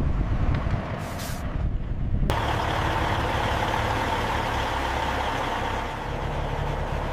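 Heavy machinery engine running with a low rumble and a short hiss about a second in. Just past two seconds the sound abruptly changes to a steadier, denser mechanical noise.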